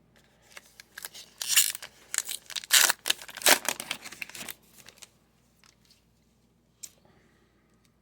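Crinkling, scratchy rustle of a thin plastic penny sleeve as a baseball card is pulled out and slid into it, in a run of bursts lasting about four seconds, then a single light tap.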